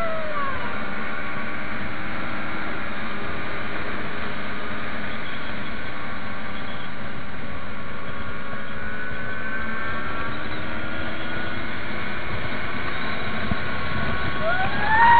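Yamaha MT-03 motorcycle's engine and exhaust running steadily on the move, its pitch drifting slightly, with a constant rush of wind over the microphone.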